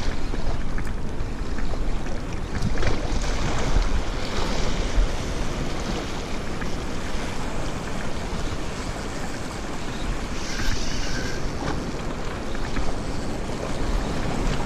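Wind buffeting the microphone over sea surf washing against shore rocks, a steady rushing noise.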